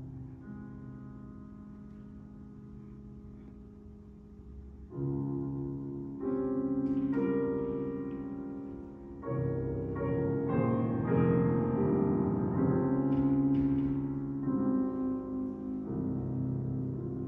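Grand piano playing with a string orchestra in a classical piece: soft held chords at first, then the music swells with louder chords about five seconds in, and a busy run of piano notes from about nine seconds on.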